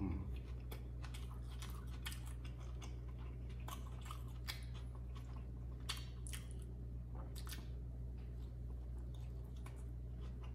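A person chewing a mouthful of McDonald's Prosperity beef burger, with irregular wet mouth clicks and smacks, over a steady low hum.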